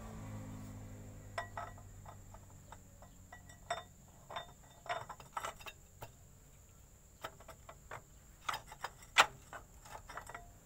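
Irregular metallic clinks and taps of steel gearbox parts being handled and fitted together, the loudest a sharp clink about nine seconds in.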